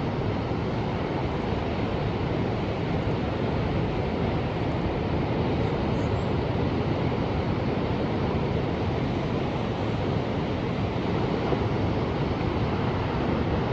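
Ocean surf: a steady wash of waves with no distinct breaks.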